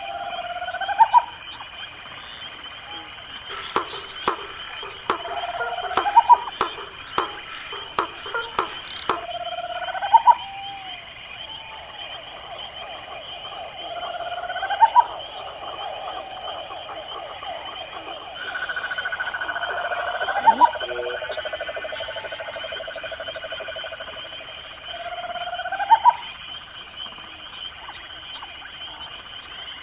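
Night chorus of crickets: a steady high trill throughout, with faint ticking above it. Short rising calls come every four to five seconds, and a lower pulsed trill, from frogs, runs through the middle.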